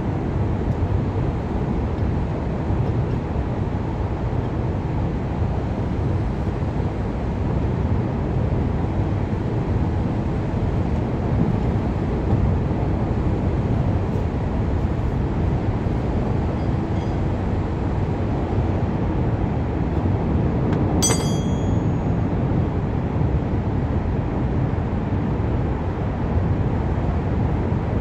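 Steady low rumble of road traffic, with a single ringing metal clink of a hand tool about three-quarters of the way through.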